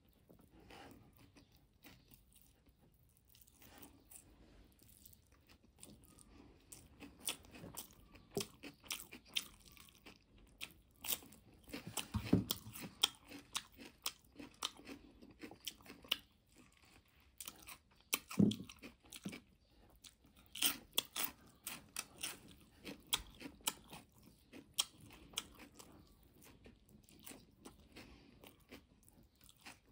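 Close-up eating sounds of a person eating noodles with her hands: chewing and sucking in strands of noodles, with many sharp wet mouth clicks at an irregular pace. The loudest bites come about twelve and eighteen seconds in.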